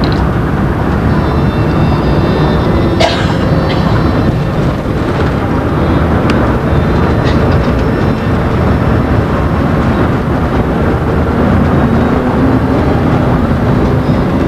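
Steady, loud rumble of road and engine noise inside a moving vehicle as it drives through a rock road tunnel, with a few faint ticks about three seconds in.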